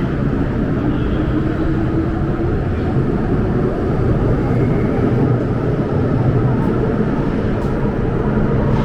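MTR M-train on the Island Line moving at the platform: a motor whine rising in pitch over the first two seconds or so, over a steady loud rumble of the train.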